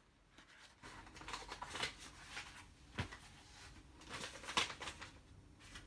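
Stack of matte paper thank-you cards flipped through and counted by hand: a run of short papery flicks and rustles, with a sharper tap about three seconds in.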